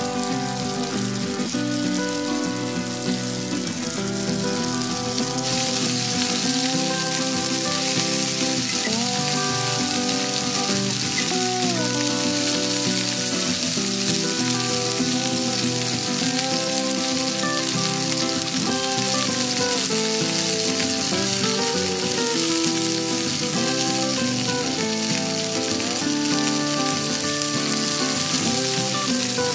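Chopped garlic and shallots sizzling in hot oil in a miniature clay pot as they are stirred with small wooden spatulas. The sizzle grows louder about five seconds in. Background music plays throughout.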